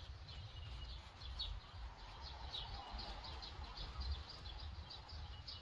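A small songbird chirping over and over, short high chirps about three a second, above a low steady outdoor rumble.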